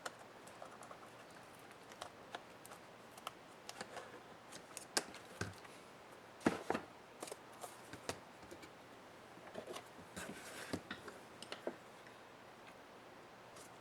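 Light, irregular clicks and taps of small laptop parts and plastic being handled by hand, with the loudest knocks about six and a half seconds in and a busier run of taps and rustling around ten seconds in.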